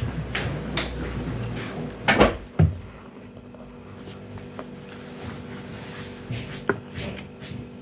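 Mouth sounds of chewing a toasted sandwich, broken by a few knocks and thumps. The loudest two come close together about two seconds in, and a few small clicks come near the end.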